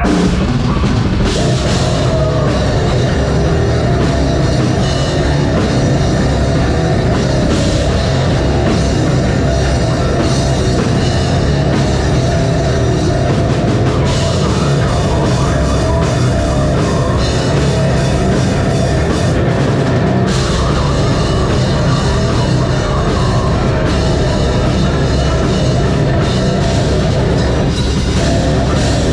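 A live metal band playing a loud, dense heavy song with a pounding drum kit. The full band comes in at once right at the start and keeps going without a break.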